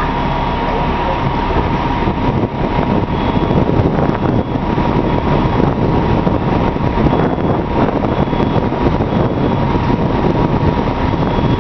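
Fire truck engine running steadily and loudly at the scene, with a steady high whine over the engine noise.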